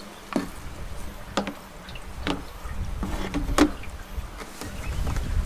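Several short knocks and clicks, roughly a second apart, over a low rumble, as coolant is poured from a jug into a tractor radiator.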